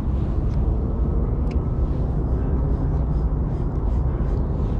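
Steady low engine rumble, with a faint tick about one and a half seconds in.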